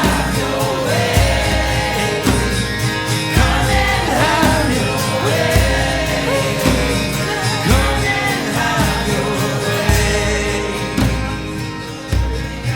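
Live worship music: a band playing, with a singer's voice over it.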